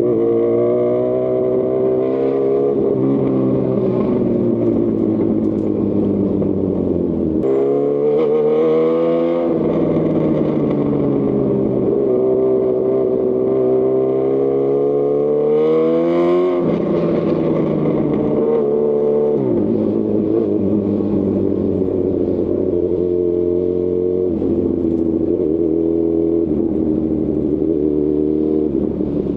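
2018 Honda CB1000R's inline-four engine through a Lextek CP1 full exhaust system while riding: the revs rise and fall repeatedly, with sudden drops in pitch about seven seconds in and again around seventeen and nineteen seconds, as on gear changes, then run steadier with small blips near the end.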